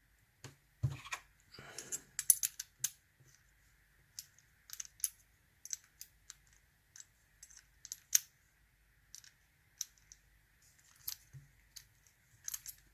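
American Lock A1100 padlock being worked with its key: irregular small metallic clicks and taps as the key goes into the pin-tumbler cylinder and is turned.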